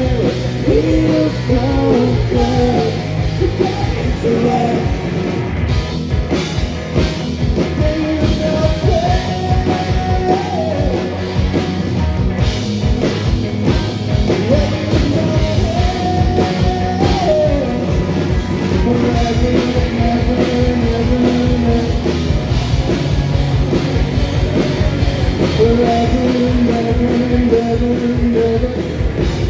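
Rock band playing: a drum kit keeps a steady beat under a wavering melody line.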